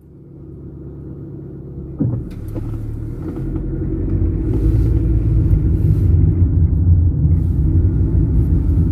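Car engine and road rumble from inside a moving car, growing louder over the first few seconds and then holding steady, with a single sharp knock about two seconds in.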